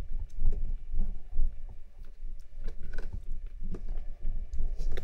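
Close rustling of towels and bedding with a low rumble and scattered soft clicks as a hand reaches in and lifts a young kitten.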